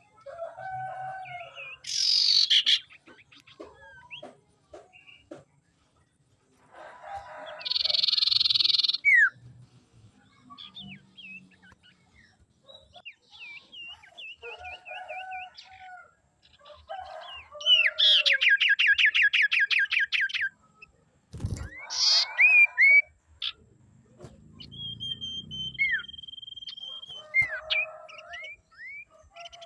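Common iora calling and singing: a varied run of whistled up- and down-slurred notes broken by harsh, buzzy bursts. Near the middle comes a fast trill of repeated notes, and near the end a long, steady whistle on one pitch.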